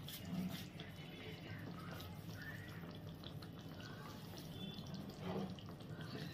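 Pabda fish curry simmering gently in a wide pan on a low flame: faint bubbling and small pops from the gravy over a low steady hum.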